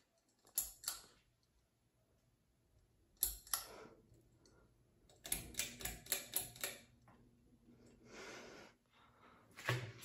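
Ceiling fan pull-chain switch clicking: two pairs of sharp clicks in the first few seconds, a quick run of about six clicks a little past halfway, and more clicks near the end, with a short soft hiss between them.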